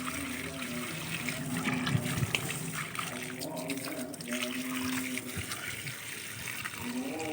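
Water running or being poured, splashing steadily, over background music that holds tones and changes pitch every second or so.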